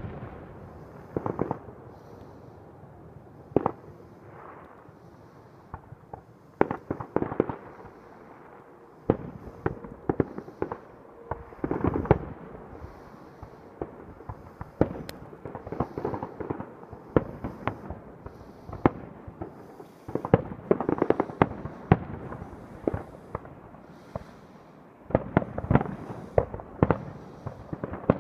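Aerial fireworks shells bursting: irregular bangs spaced a second or more apart, some echoing afterwards, then a rapid string of bangs near the end.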